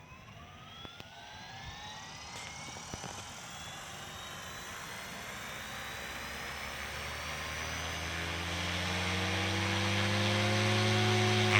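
SAB Goblin 380 electric RC helicopter spooling up: a rising motor whine climbs in pitch, then the rotor hum settles and grows steadily louder.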